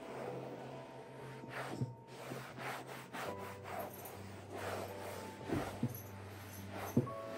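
Scrubbing: a brush or cloth rubbed hard back and forth over a surface in short, irregular strokes, about two a second.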